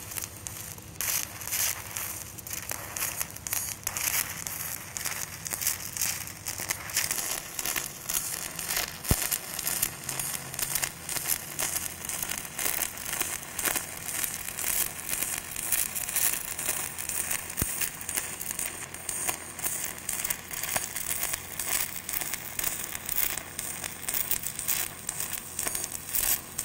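Stick welding arc burning on an aluminum electrode: a steady, irregular crackle and sputter for the whole weld, with the welder on a pulsed stick program at 2.2 hertz.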